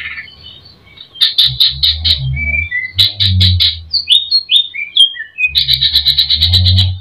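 Cucak ijo (green leafbird) singing a varied song full of mimicked calls of other birds: fast runs of sharp repeated notes alternating with short falling whistles.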